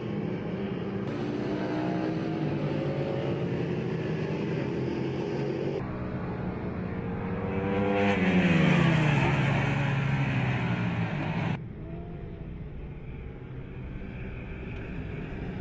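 Racing superbike engines at high revs, the pitch rising as a bike accelerates. About eight seconds in, a bike passes close by, the loudest moment, its pitch dropping steeply as it goes past. After that the sound cuts to a fainter, steady engine note.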